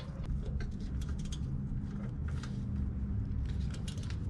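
Oil drain plug being threaded back into a Craftsman 208 cc snow blower engine and tightened with a 10 mm socket wrench: a few light metallic clicks and handling taps over a low steady rumble.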